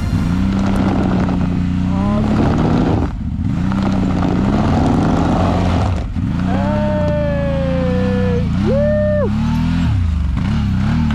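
Vehicle engine revving up and down again and again as a bogged vehicle is worked free. A second, higher whine rises in partway through, slides slowly down and cuts off.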